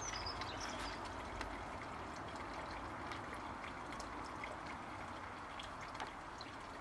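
A steady, faint trickling hiss like running water, with a few light clicks and taps as the floating plastic toy ship is touched and rocked by hand.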